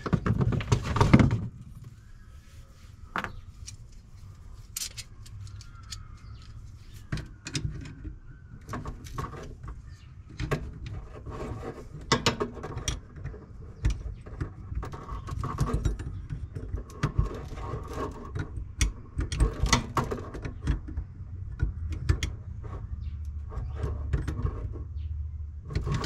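Irregular clicks, taps and light metallic clinks of hand tools and plumbing parts as a Teflon-taped threaded fitting is tightened, over a low rumble.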